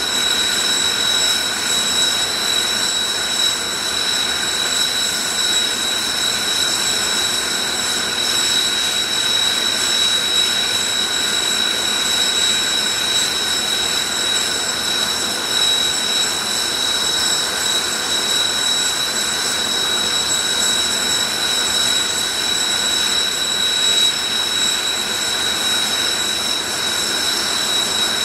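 Jet engines of Blue Impulse Kawasaki T-4 trainers running with a steady, high whine. The sound holds even, with no rise or fall of a fly-by.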